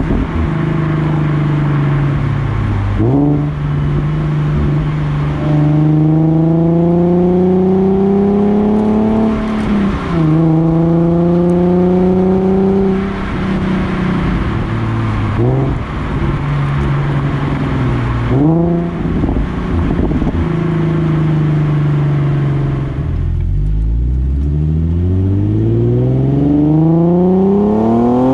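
Exhaust of a Nissan 370Z's 3.7-litre V6, heard at the tailpipe while driving with the stock catalytic converters still fitted. The engine note climbs in pitch and drops back several times as it accelerates through the gears, eases off about 23 seconds in, then revs rising again near the end.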